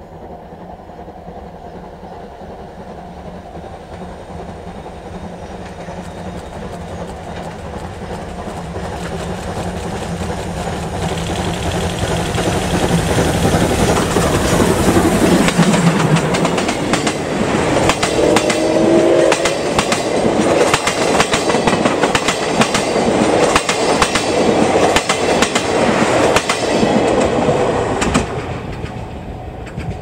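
C57 180 steam locomotive and its 12-series passenger coaches approaching and passing close, steadily growing louder. Its sound drops in pitch as the engine goes by about halfway through. The coaches' wheels then clack rapidly over the rail joints, and the sound fades near the end.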